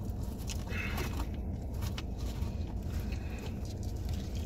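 Food being handled and eaten: scattered light crinkles, clicks and bites over a steady low rumble in a car cabin.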